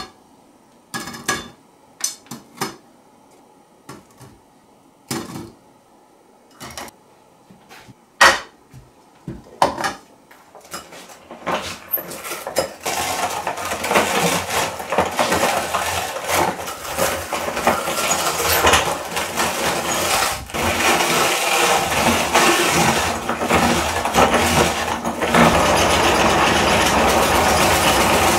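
Chikki brittle being crushed in a hand-cranked meat grinder. At first there are scattered knocks and clicks. A little before halfway a continuous crackling crunch with the rattle of the metal grinder sets in, and it grows louder and steadier near the end.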